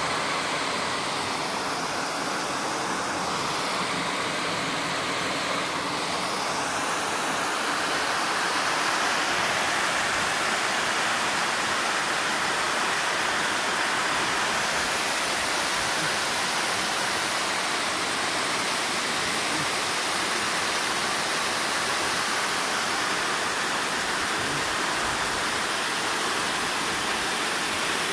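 Water overflowing the crest of a dam and pouring down its sloping spillway face in a steady rush.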